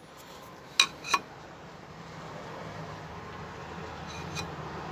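Two short metallic knocks close together about a second in, from a removed brake disc and tools being handled, then a low steady hum.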